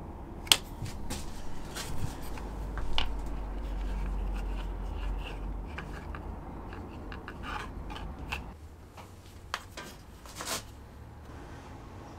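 Hands handling sheets of material and a Kydex sheath on a workbench, then sliding them into a metal press jig. There are scattered clicks, taps and scrapes, with a sharp click about half a second in, over a low hum that stops about two-thirds of the way through.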